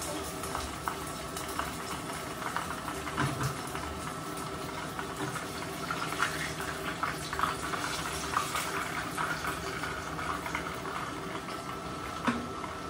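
Hot corn oil sizzling, with many small irregular crackles as food fries in it, over a faint steady hum.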